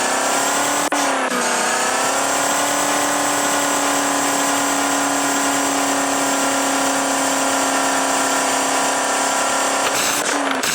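Maruti Suzuki Eeco van's engine revved hard and held at steady high revs for several seconds. The revs dip briefly near the start and drop again near the end.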